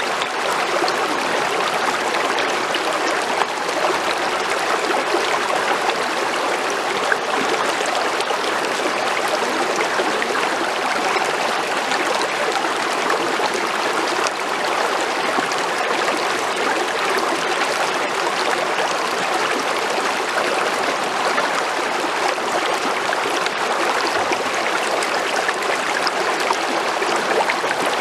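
Creek water flowing steadily over rocks, an even rushing babble with small trickles and gurgles.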